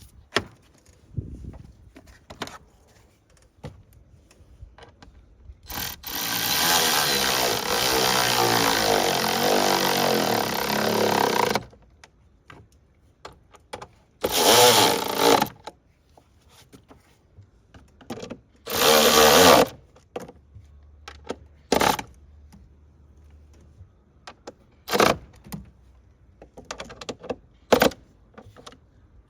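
A handheld power tool runs in three bursts: one about six seconds long, then two short ones of about a second each, with clicks and knocks of handling in between. The fasteners are being driven tight.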